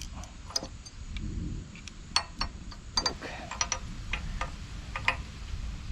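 Scattered light clicks and taps, some with a short metallic ring, about a dozen at uneven intervals, from small metal parts and tools being handled on a mower.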